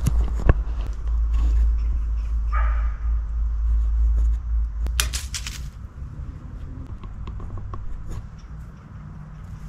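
A heavy low rumble on the microphone through the first six seconds, then fading. A short call sounds about two and a half seconds in, and a quick run of sharp crackling clicks about five seconds in.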